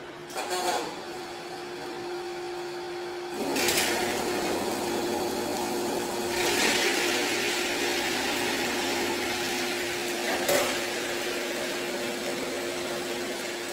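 A machine running with a steady hum, with louder surges of hissing noise now and then, the strongest starting about three and a half and six and a half seconds in.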